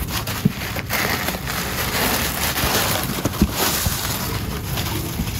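Packing paper rustling and crinkling as hands dig through crumpled paper and brown honeycomb kraft wrap in a cardboard box and lift out a wrapped item, with small crackles and taps among the rustle.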